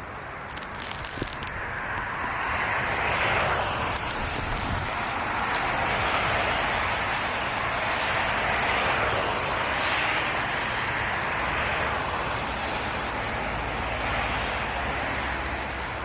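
Jet airliner passing close on its landing approach: engine noise swells about two seconds in and holds as a steady rushing roar, easing slightly near the end. Gusty wind rumbles on the microphone.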